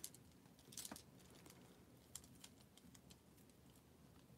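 Faint, scattered light clicks of glass beads and metal chain knocking together as a beaded necklace is handled.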